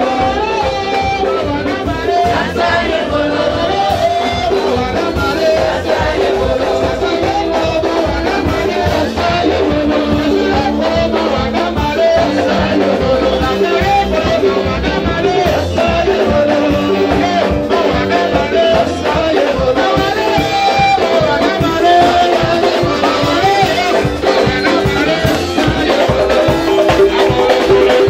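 Church praise music: a band with drum kit keeps a steady dance beat while voices sing over it through the hall's loudspeakers.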